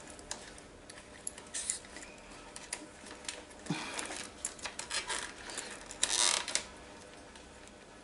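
Small plastic clicks and rustles of hands fitting a wire's push-on connector into a vacuum cleaner's power switch housing, with a brief louder rustling noise just after six seconds.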